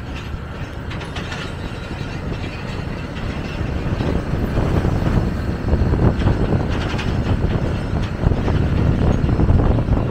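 A road vehicle running with a heavy rumble and a quick rattling clatter, getting louder about four seconds in.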